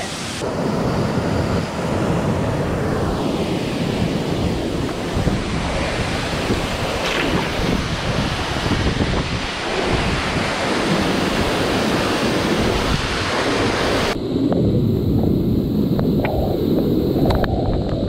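Waterfall crashing into a pool close by: a loud, steady rush of falling water. About 14 seconds in, the high hiss drops away and leaves a duller, deeper rumble, with a few sharp spatters near the end.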